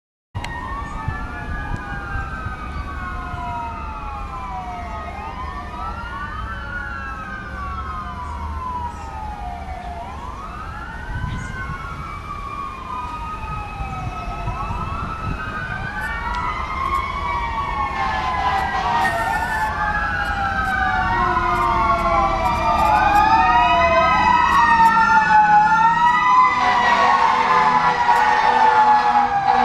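Several fire truck sirens wailing at once, their rising and falling pitches overlapping and growing louder as the rigs approach. In the last few seconds steady horn blasts join in.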